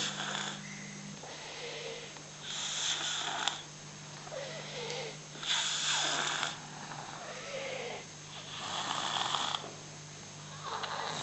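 Baby snoring: a loud snore about every three seconds, with softer breaths in between.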